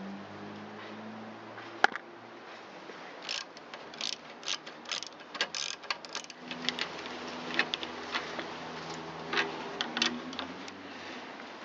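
Hand ratchet clicking in short, irregular runs as the two bolts holding a string trimmer engine's carburetor are backed out, with one sharp click about two seconds in. A low steady hum runs underneath.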